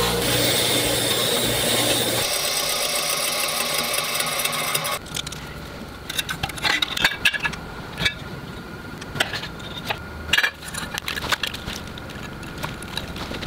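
Bench grinder running with a wire wheel as rusty hardware is held against it and wire-brushed clean. The grinding stops abruptly about five seconds in, followed by light metallic clicks and taps of small parts and pliers handled on a steel bench.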